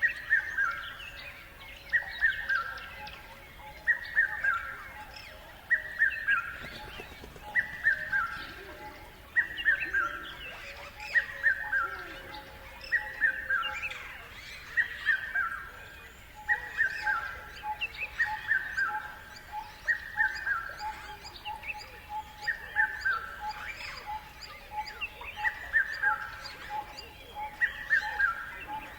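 A bird repeats a short call of quickly falling notes about every two seconds, with fainter chirps of other birds around it. Under them runs a steady, evenly pulsing lower call.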